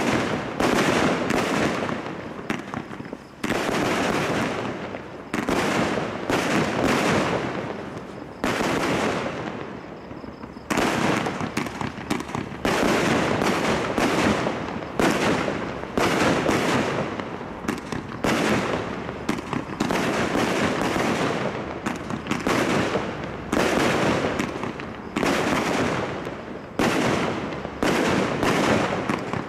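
85-shot single-ignition consumer fireworks cake firing shot after shot: sharp launch reports and aerial bursts coming about one or two a second, each trailing off before the next, with a brief lull about nine seconds in.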